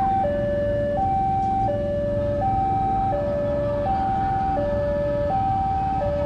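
Railroad level-crossing warning alarm sounding its two-tone electronic signal, a high note and a lower note alternating about every three-quarters of a second, warning that a train is approaching. A low steady rumble runs underneath.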